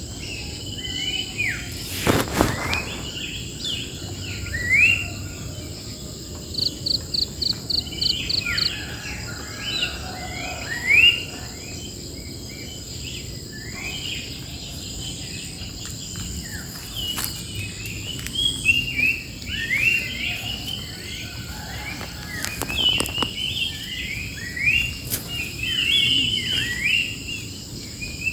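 Several songbirds chirping and calling over and over, short rising and falling notes with a quick run of ticking notes in the middle, over a steady high drone of insects. A brief burst of noise comes about two seconds in.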